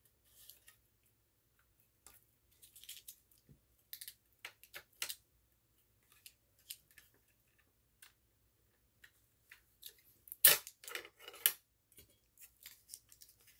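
Scattered plastic clicks and short scrapes as hands work the mounting bracket off a Vulcan PVR Mark II smoke alarm, with one sharp snap about ten seconds in, the loudest sound.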